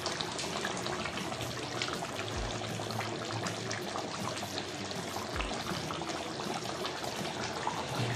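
Chicken and potato curry boiling in a kadai, with steady bubbling.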